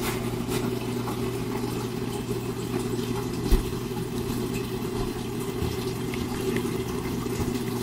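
Steady low electric hum with a faint watery hiss, like a pump or motor running continuously; a single light knock about three and a half seconds in.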